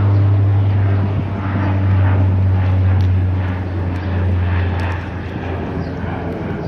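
A steady low engine drone with a noisy wash over it, dropping off about five seconds in.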